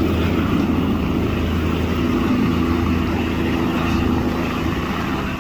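A light four-bladed helicopter lifting off and climbing, its main rotor and engine running with a steady, loud chopping noise.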